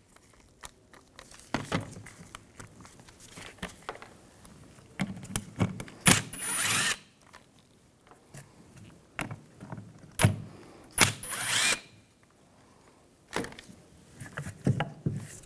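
Cordless power driver with a T30 Torx socket spinning screws out of a fan clutch in two short bursts, about 6 s and 11 s in, each with a high motor whine. Between them come light metal clicks and knocks as the screws and the fan are handled.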